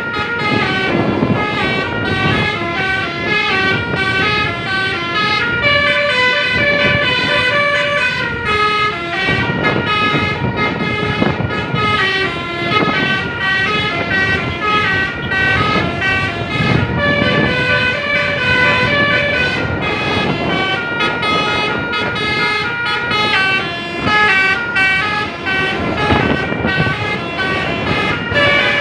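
Basuri telolet musical bus horn playing a long melody of short horn notes that step up and down in quick runs, over a low rumble.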